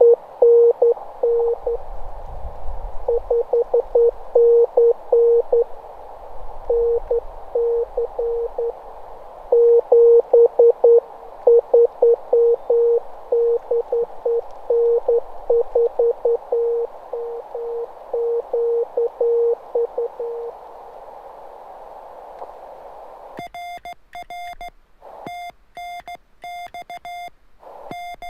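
Morse code (CW) from a ham radio transceiver: a single steady tone keyed on and off in quick dots and dashes over a band of receiver hiss, stopping about 20 seconds in. Near the end a different, brighter electronic beeping starts.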